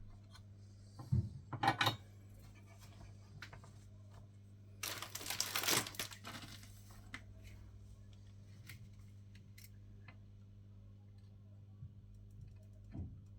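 Small handling noises on a workbench: a couple of knocks about a second in, a brief rustling scrape around five seconds in, and scattered light clicks, over a steady low hum.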